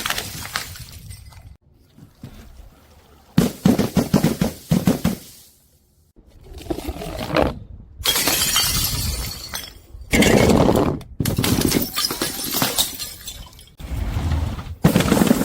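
Glass bottles dropped and shattering, one after another in a series of separate smashes, each a sudden crash followed by the crunch and tinkle of falling shards.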